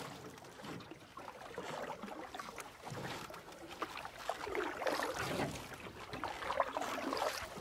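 Water splashing and trickling, irregular and fairly quiet, growing louder in the second half.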